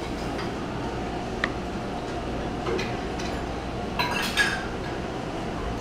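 Metal chopsticks clinking against a serving plate as pieces of sundae are picked up: one sharp click about a second and a half in, then a quick cluster of clinks about four seconds in, over a steady background hum.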